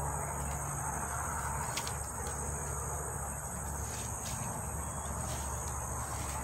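A steady high-pitched insect chorus, with a low steady rumble underneath and a few faint clicks and rustles.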